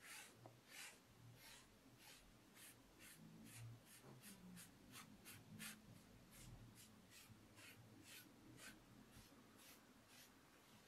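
Natural sponge wiped back and forth over the surface of an unfired clay plate: a faint, rhythmic scratchy swishing, about two to three strokes a second, a little quicker in the middle.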